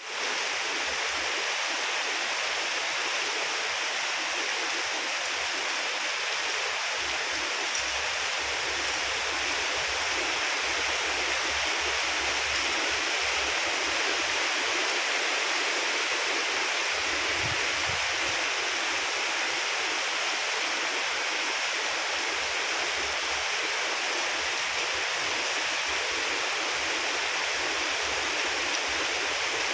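Heavy rain pouring down in a storm, a steady, even hiss with no letup.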